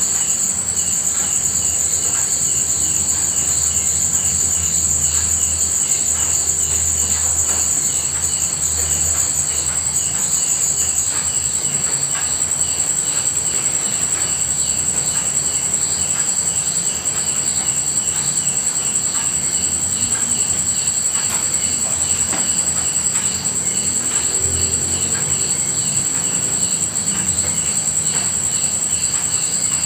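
Night insects trilling: a continuous high-pitched buzz with rows of quick pulsing chirps beneath it, part of the highest buzz dropping out about a third of the way in. A faint patter of rain runs underneath.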